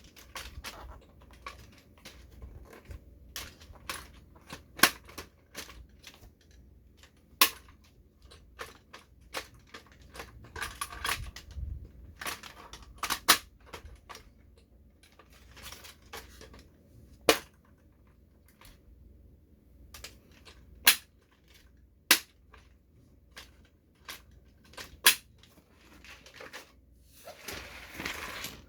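Handling of a Bruder plastic toy snow groomer: sharp, irregular clicks and snaps, with a few short stretches of rustling in between.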